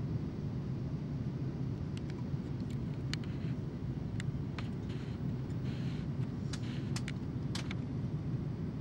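Airliner cabin noise in cruise-like flight: a steady low rumble of engines and airflow heard at a window seat. A scattering of short light clicks and ticks comes through the middle.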